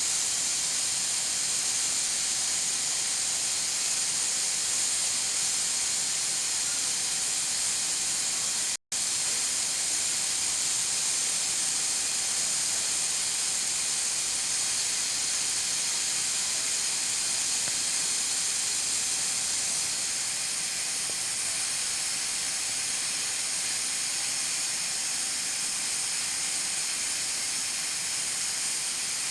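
Pressure cooker letting off steam through its weighted valve, a steady high hiss. It cuts out for an instant about nine seconds in.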